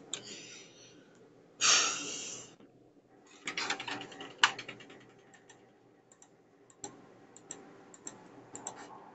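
A sudden short burst of rustling noise about two seconds in, then a quick cluster of light clicks and taps and scattered single clicks after it.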